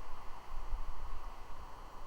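Uneven low wind buffeting on an outdoor microphone over a steady hiss.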